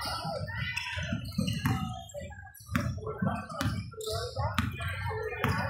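Basketball game sounds in a large gym: the ball bouncing on the hardwood court and sharp knocks from play, over spectators' chatter.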